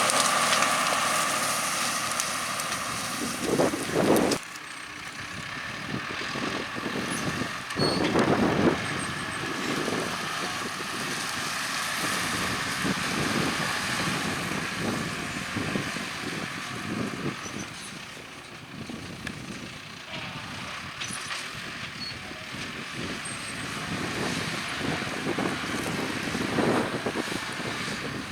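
Farm tractor engines running in the field, loud at first and fading over the first few seconds, with irregular surges later on.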